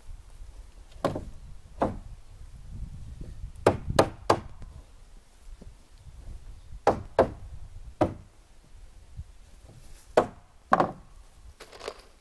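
Sharp knocks on wooden boards, about ten, irregularly spaced with some coming in quick pairs and threes.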